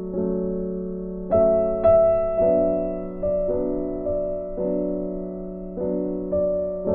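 Background piano music: slow notes and chords struck every half second to a second, each fading away.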